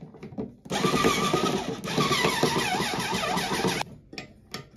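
Electric drill driver running for about three seconds as it drives a screw into a metal towel hook. The bit catches on the hook, so the screw is not going in well. A few small clicks follow near the end.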